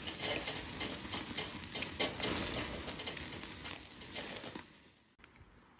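Food sizzling and crackling on a hot grill, a steady hiss dotted with quick pops. It fades and cuts off near the end.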